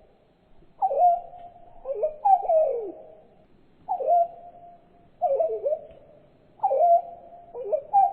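Reconstructed Microraptor hanqingi call built from Palestine sunbird and bulbul recordings. Short swooping notes, each dropping in pitch and trailing into a brief held tone, repeat about every second, sometimes in quick pairs.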